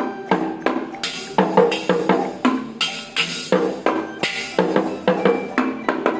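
Toy drum set played with sticks: the small drums are struck in an uneven beat, about three or four hits a second.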